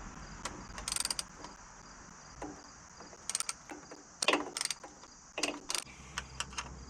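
Socket ratchet clicking in several short bursts as it turns a bolt.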